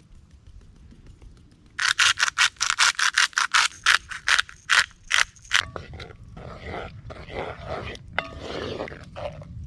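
Salt, pepper and paprika being added to a pot of chili: a quick run of short, sharp, gritty strokes, about four a second for some four seconds, then a softer, irregular scraping.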